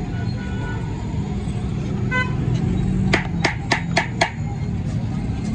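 Busy street-bazaar background rumble with a short vehicle horn toot about two seconds in, then five sharp knocks in quick succession, a little over three a second.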